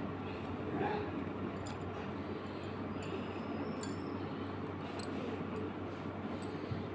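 Thin bangles on the wrist clinking lightly several times over the soft rustle of a hand-knitted wool sweater being handled.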